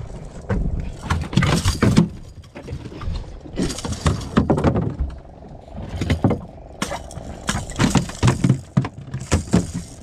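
Irregular knocks and thuds against a fibreglass boat's deck and hull as freshly landed kingfish are handled.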